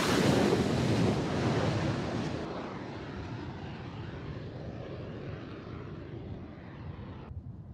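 The X-47B unmanned jet's turbofan engine at full power as it rushes down the carrier deck and climbs away. The sound is loudest in the first two seconds and then fades steadily as the aircraft recedes, with wind buffeting the microphone.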